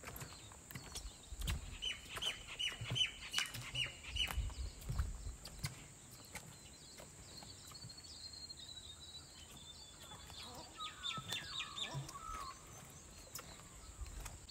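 Small birds singing: a quick run of about eight high chirps a couple of seconds in, then a twittering, warbling phrase in the second half. Soft low thumps and clicks are heard along with them.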